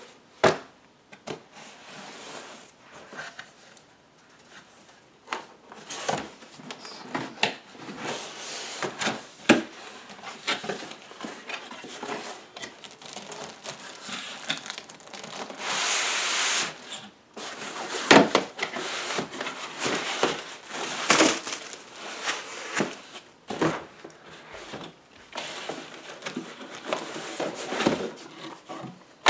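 A cardboard shipping carton being handled and unpacked: flaps knocking and scraping, with rubbing and crinkling of foam and plastic packing as panels are slid out. Scattered sharp knocks, and a longer scraping rush about halfway through.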